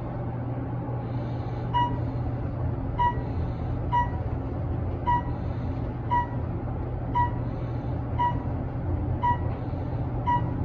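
Elevator car descending with a steady low hum. From about two seconds in, a short electronic beep sounds about once a second, the car's signal for each floor passed.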